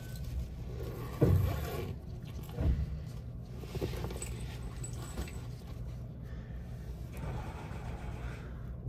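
Sound of the Haruka limited express train heard from inside: a steady low rumble with a few knocks and rattles, the loudest knock about a second in and another near three seconds in.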